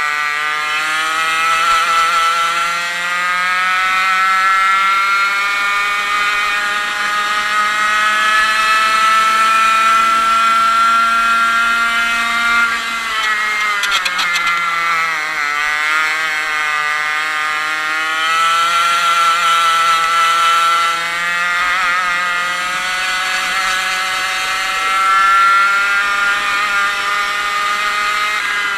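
A 100cc two-stroke kart engine heard onboard at racing speed, its pitch climbing steadily under full throttle down the straights. It drops sharply about thirteen seconds in as the driver lifts off for a corner, then climbs again, with a shorter dip a little past twenty seconds and another drop near the end.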